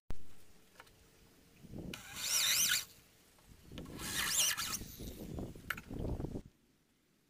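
Corded electric drill boring holes into a hardwood bed rail, in two bursts of a second or two each, the second longer.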